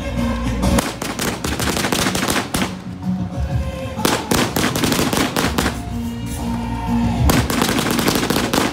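Low-noise fireworks crackling and popping in three dense runs, over loud music with a steady bass line.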